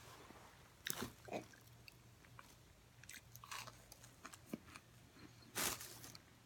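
Crisp crunching and chewing of oven-baked, frozen cornstarch chunks: several sharp crunches with quieter chewing between them.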